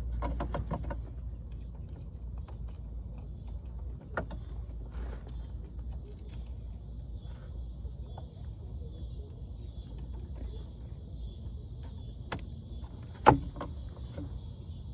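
Small scattered clicks and knocks of a plastic turn-signal bulb socket and LED bulb being handled, the loudest a sharp click about 13 seconds in, over a low steady rumble. A faint steady high hiss joins about five seconds in.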